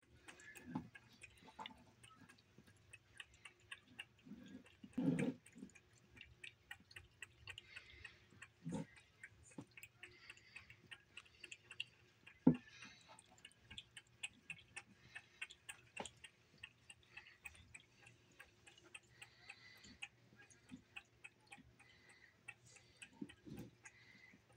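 A cat eating from a bowl of cereal, its lapping and chewing making quick, quiet wet clicks several times a second. A few louder knocks break in, the sharpest about halfway through.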